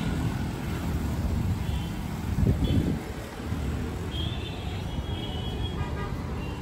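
Road traffic noise: a steady low rumble of passing vehicles, swelling briefly about two and a half seconds in.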